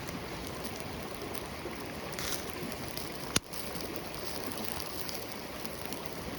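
Wood campfire crackling steadily, with scattered small snaps and one sharp pop about three and a half seconds in.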